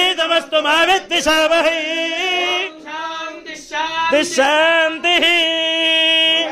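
Male priests chanting Vedic mantras together during the abhishekam, with a short break partway and a long held note near the end.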